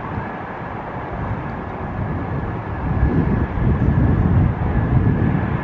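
An Antonov An-124's four D-18T turbofan engines running. A steady high whine sits over a broad rumble, and the rumble grows louder about halfway through.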